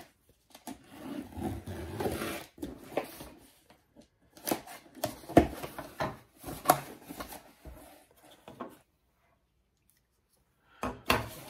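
A cardboard shipping box being opened and handled: irregular scraping, rubbing and rustling with sharp clicks and knocks, with a pause of about two seconds near the end.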